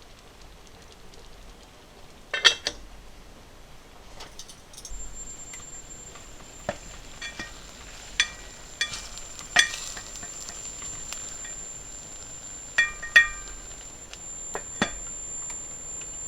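Dishes and utensils clinking: a series of sharp metal and glass clinks that ring briefly, the loudest a little over two seconds in and again near thirteen seconds. A thin, steady high-pitched whine starts about five seconds in and runs under the clinks.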